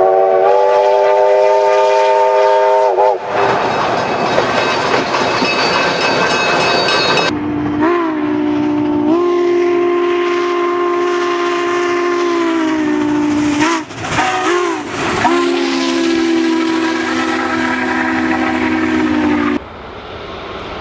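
Steam locomotive whistle sounding a chord of several notes in long blasts over the noise of a running train: a blast of about three seconds at the start, a long blast about eight seconds in that steps up in pitch and sags at its end, two short toots, then another long blast that cuts off abruptly near the end.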